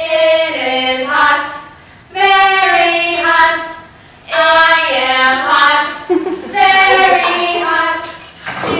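A small group of mostly female voices singing together unaccompanied, in four phrases of about two seconds each with short breaths between them.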